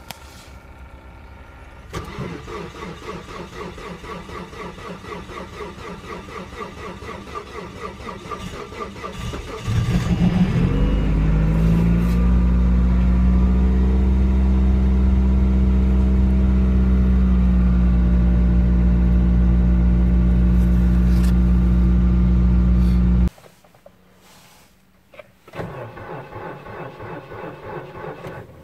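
Mazda 3's starter cranking a cold-soaked engine, which has stood four days down to −30 °C, for about eight seconds. The engine catches about ten seconds in, its revs rise briefly, and it settles into a loud, steady fast cold idle until it cuts off abruptly. Near the end a 2009 Suzuki Splash 1.0 three-cylinder's starter cranks briefly and more quietly.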